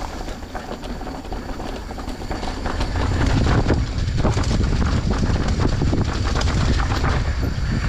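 Off-road bike ridden over a rough forest trail: irregular rattling and clattering over a low rumble, growing louder about two and a half seconds in.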